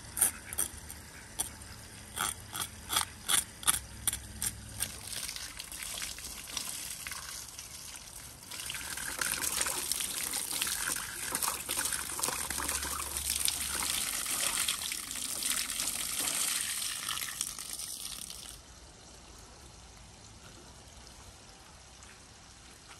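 A run of quick, sharp knife scrapes on a large raw trout, then a jet of water splashing steadily over the fish for about ten seconds while the scraping goes on. The water cuts off suddenly, leaving quiet.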